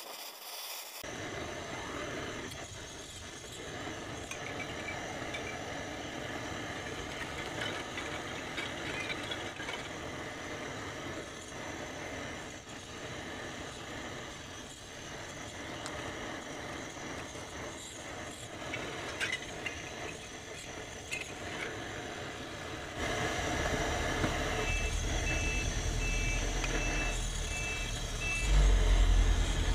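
Caustic bluing salt bath of sodium hydroxide and potassium nitrate bubbling and crackling in a steel pan over a portable gas burner. From about two-thirds of the way in, a deep engine rumble joins, with a run of about six short high beeps from a reversing alarm, and the rumble swells loudest near the end.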